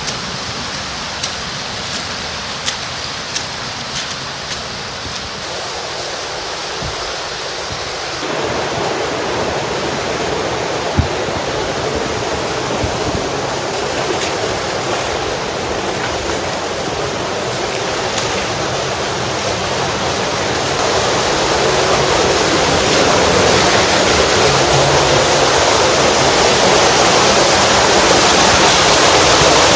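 Warm hot-spring creek rushing over rocks in a steady wash of water noise that grows louder towards the end. A few sharp clicks sound in the first few seconds.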